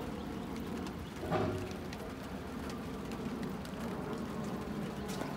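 Steady rain falling, with scattered drops ticking; a brief louder sound a little over a second in.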